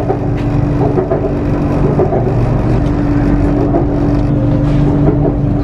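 Elevated electric train running, heard from inside the carriage: a steady rumbling hum with one held mid-pitched tone.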